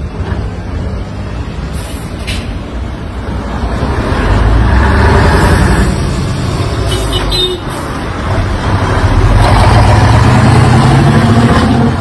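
Iveco TurboStar V8 diesel tractor unit with open exhaust pipes pulling away under hard acceleration: the engine note rises, dips briefly at a gear change a little past the middle, then climbs again louder. A few short hisses of air are heard along the way.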